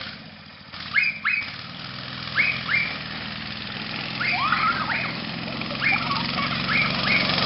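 A small dog barking in quick pairs of short, sharp yaps, over the steady running of a go-kart's small engine, which grows louder from about halfway.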